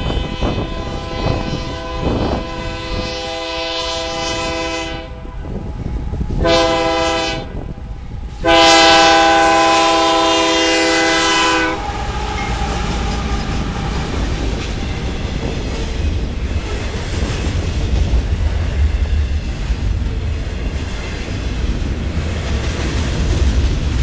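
Canadian Pacific GE AC4400CW diesel locomotive sounding its multi-note air horn for a grade crossing. A long blast ends about five seconds in, a short blast follows, then a final long blast, the loudest, cuts off as the locomotive passes about twelve seconds in. After that come the steady rumble and wheel clatter of flatcars loaded with wind-turbine tower sections rolling by.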